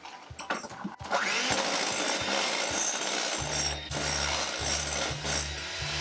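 Electric hand mixer switched on about a second in after a few light clicks of handling, then running steadily with its beaters whirring through a wet cookie-dough base of creamed butter, sugar, egg and vanilla in a glass bowl.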